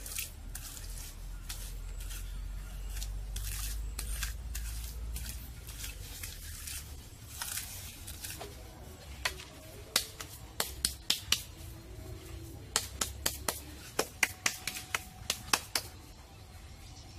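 A run of short, sharp clicks or snips, irregular and coming in quick clusters in the second half, over a low rumble in the first half.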